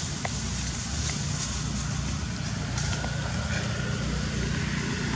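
Steady low rumble of a motor vehicle engine running nearby, with a few faint ticks over it.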